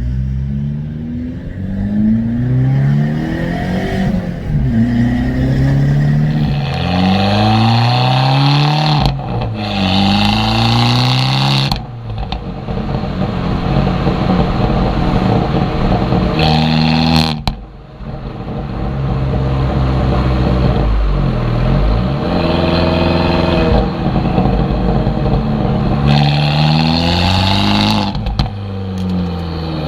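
Abarth 595's turbocharged four-cylinder through a Monza exhaust with a Toyosports sports catalytic converter, pulling hard. The engine note rises, drops back at each gear change, and rises again several times.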